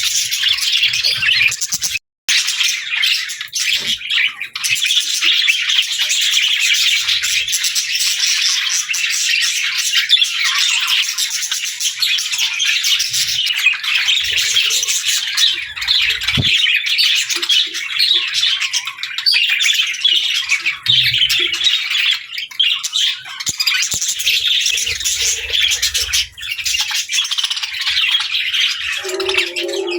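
Budgerigars chirping and chattering continuously in a dense, high-pitched stream, with a momentary break about two seconds in.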